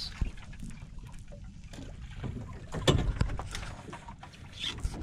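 Water lapping against the hull of a small fishing boat, a low steady wash with a few scattered knocks, one of the clearest about three seconds in.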